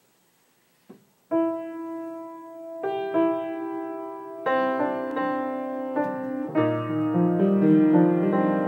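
Slow solo piano music. After about a second of near silence and a faint click, single notes and chords come in one at a time, each ringing on as it fades, and lower notes join near the end as the playing grows fuller.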